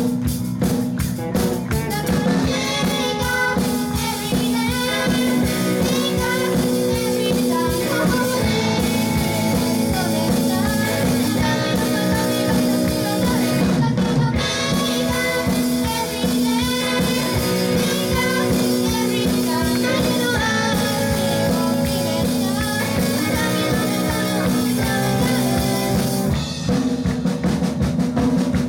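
Live band performing a song: drum kit, bass and other instruments playing a steady beat, with singing.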